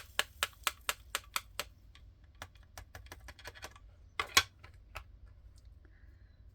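A quick run of light, sharp clicks, about five a second, thinning after about a second and a half into scattered clicks, with a louder double click about four seconds in.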